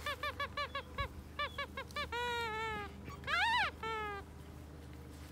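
Puppy whimpering in a quick run of short, high whines, about five a second, then a few longer cries, one falling and one louder, rising yelp about three and a half seconds in.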